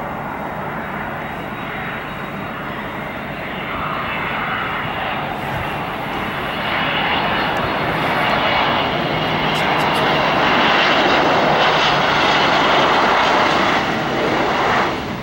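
A Boeing 767-300ER's twin jet engines on final approach: a steady rush of engine noise that swells as the airliner closes in and passes low overhead, then falls off suddenly near the end.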